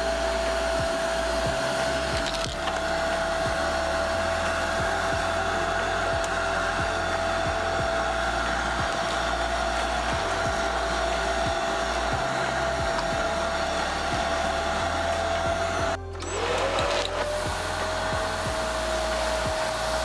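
Rowenta Swift Power Cyclonic 750 W bagless cyclonic canister vacuum cleaner running, a steady whine over rushing air as the floor head is pushed over carpet. About sixteen seconds in, the sound breaks off for a moment and comes back with a rising whine as the motor returns to speed.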